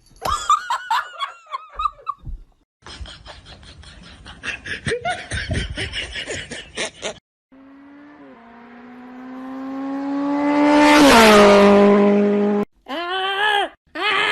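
A string of separate sounds. First come short bending voice-like calls, then a stretch of rattling noise. Next an engine approaches and passes, its pitch rising and swelling to a peak, then dropping sharply and cutting off. Groan-like cries follow near the end.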